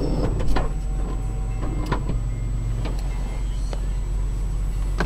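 A handful of sharp clicks and knocks inside a 2000 Honda Odyssey minivan's cabin, over a steady low hum, with a brief low motor-like hum in the middle.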